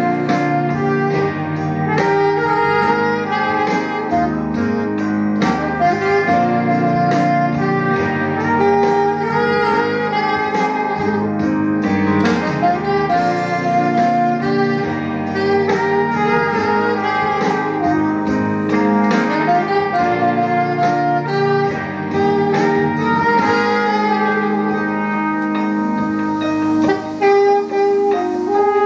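Saxophone playing a melody of sustained notes into a microphone, over a steady backing beat.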